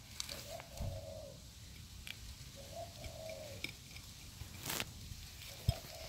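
A dove cooing three times, a low soft hooting phrase about a second long repeated every two and a half seconds or so. There is a sharp click about three-quarters of the way through.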